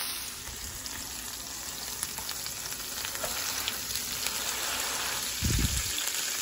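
Hamburger patties sizzling in oil in a nonstick frying pan, with small crackles throughout. A dull low bump about five and a half seconds in is the loudest moment.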